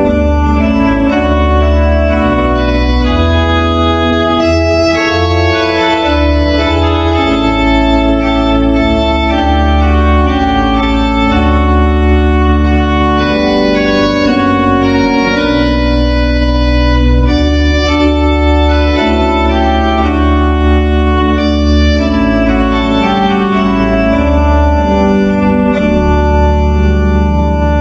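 Organ music: slow, held chords over deep bass pedal notes, the harmony moving every second or two.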